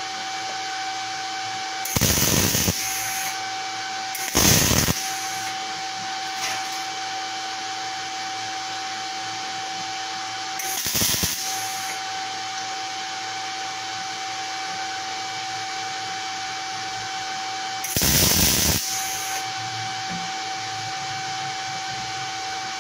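MIG welder running 0.9 mm wire at about 18.3 V and 130 A, striking four short arcs on 3.3 mm steel plate, each a burst of arc crackle under a second long, about 2, 4.5, 11 and 18 seconds in. A steady hum runs underneath.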